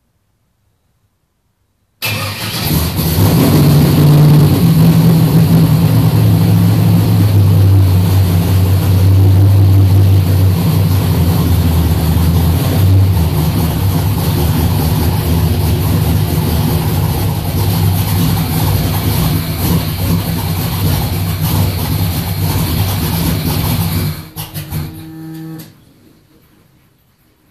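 Twin-turbocharged 540 cubic inch big-block Chevrolet V8 fires up about two seconds in and runs loudly and steadily, a little quieter after the middle. Near the end it is switched off and sputters to a stop within about a second.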